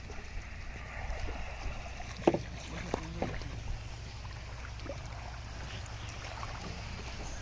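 A bamboo fish trap being lifted out of shallow water beside a wooden boat: light water splashing and trickling, with one sharp knock about two seconds in and a couple of lighter knocks a second later, over a steady low rumble.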